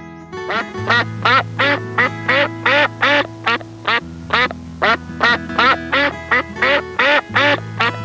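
A quick regular run of short animal calls, roughly three a second, each rising then falling in pitch, over background music with held notes and a bass line.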